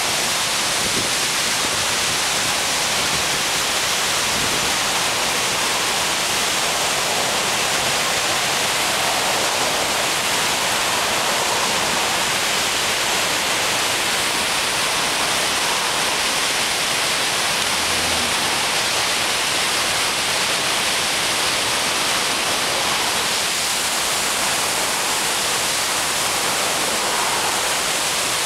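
A river in flood rushing through whitewater rapids over boulders: a loud, steady rush of water.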